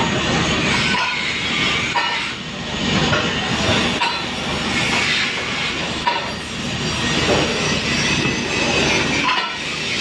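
Stick-welding (SMAW) arc crackling and sizzling steadily as an electrode burns along a steel pipe joint, its loudness swelling and dipping every second or two.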